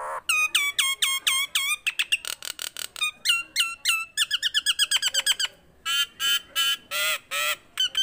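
Common myna singing a fast series of repeated hooked, whistled notes, about five a second, breaking into a quicker run around the middle and slower, harsher calls near the end.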